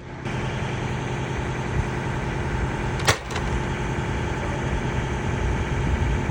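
A steady engine-like hum, like a vehicle idling, with a single sharp click about three seconds in.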